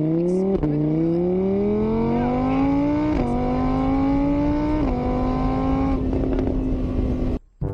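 Car engine accelerating hard through the gears, its pitch climbing and dropping abruptly at each of three shifts. It then holds a steady pitch and cuts off suddenly near the end.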